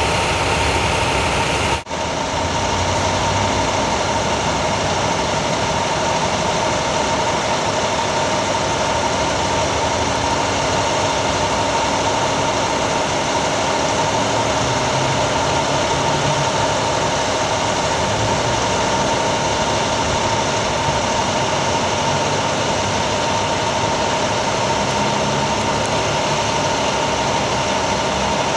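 Heavy vehicle engines idling in a steady drone, with a constant whine running through it. The sound drops out for an instant about two seconds in.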